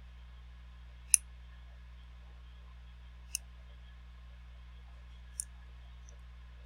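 Small metal hand tools clicking at a microsoldering bench: three sharp, short clicks about two seconds apart, the first the loudest, over a steady low electrical hum.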